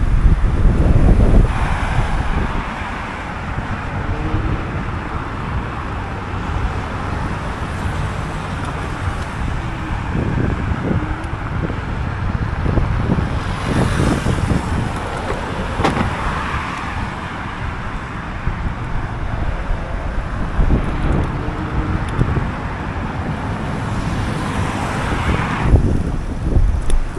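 Ride noise from a Teverun Fighter 11 electric scooter under way: a steady rush of tyre and road noise, with wind buffeting the microphone in heavy low gusts near the start and again near the end.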